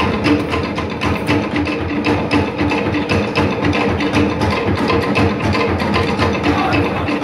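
Live Polynesian luau show music: fast, steady drumming with held low instrument notes underneath.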